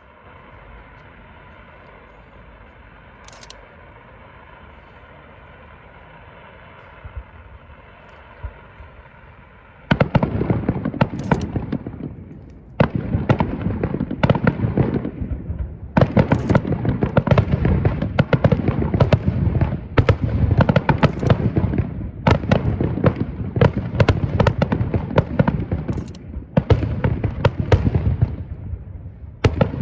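Star mine fireworks: after a quiet stretch of faint sustained tones, a rapid, densely packed barrage of aerial shell bursts and crackling starts about a third of the way in and carries on, with two short lulls.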